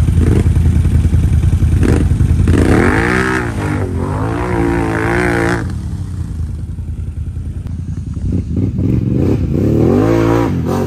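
Can-Am ATV engines revving hard as the quads plough through mud and water, the engine pitch climbing and dropping in repeated throttle blips. The engine drops to a quieter run about six seconds in, then revs up again near the end.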